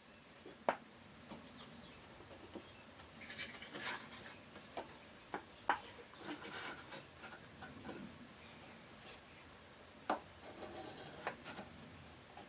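Small wooden box parts being handled and fitted together by hand for a glue-up: a few light, sharp wooden clicks and knocks scattered through, with soft rubbing of the pieces in between.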